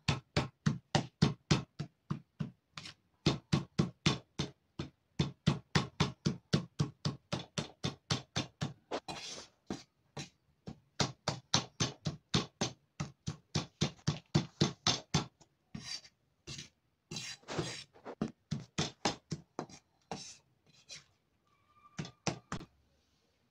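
A large kitchen knife chopping toasted chile de árbol on a maguey leaf, rapid even strokes about three a second. The strokes thin out and become irregular during the last several seconds.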